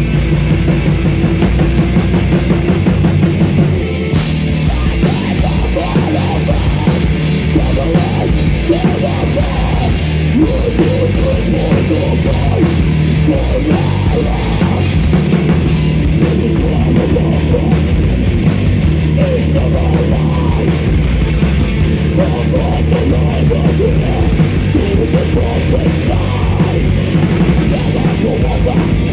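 Heavy metal band playing live and loud, with guitars, bass and drums, with a brief dip in loudness about four seconds in.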